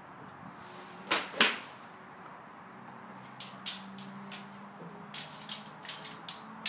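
Golf club striking a ball off a driving-range mat: two sharp cracks a third of a second apart about a second and a half in, the second the louder, followed by several fainter, quicker clicks.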